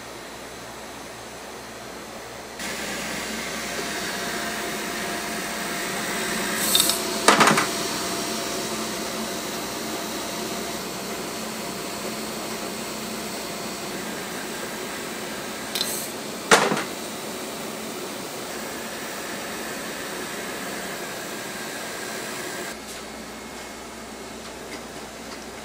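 Cotton candy machine running with a steady hum as its spinner head turns, for most of the clip, with two short sharp knocks partway through.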